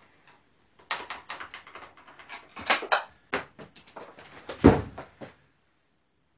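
Motorcycle handlebar being shifted and knocked about in its clamps: a run of metal clicks and clunks, with one heavy thump about four and a half seconds in, as the bar fails to locate properly.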